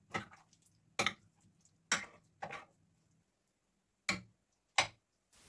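A metal spoon clinking against a ceramic baking dish while chicken is stirred through a thick marinade: about six separate sharp taps at uneven intervals, with quiet between them.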